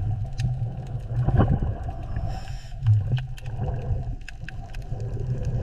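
Underwater ambience: a low pulsing rumble with many scattered clicks, and a brief gurgle a little over a second in.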